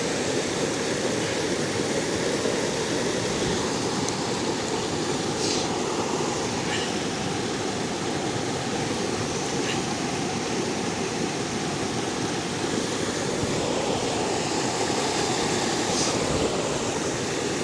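Waterfall rushing steadily, with a few faint ticks along the way.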